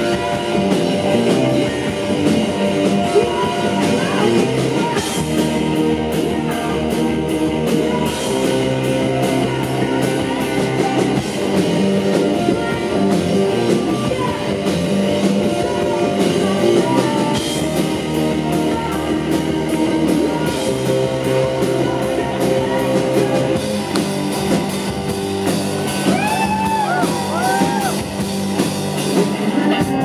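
Alternative rock band playing live at full volume: distorted electric guitar, bass guitar and drum kit.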